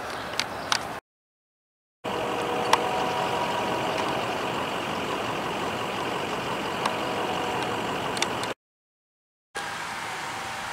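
A steady mechanical hum like a running engine, with a few faint clicks, broken twice by about a second of dead silence where the recording cuts.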